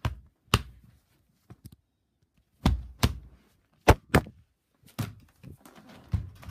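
A tablet being slammed down hard again and again: about eight heavy thunks at uneven intervals, some in quick pairs.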